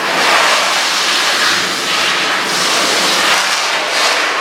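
Pet-washing machine running: a loud, steady rush of water spraying from the wand, swelling and easing as it moves, with a faint low pump hum underneath.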